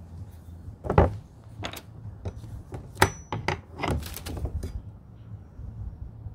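Irregular knocks and taps on timber and plastic as PVC soffit boards are fitted and fixed to the roof timbers. The sharpest knocks come about a second in and about three seconds in, with a quicker run of taps around four seconds in.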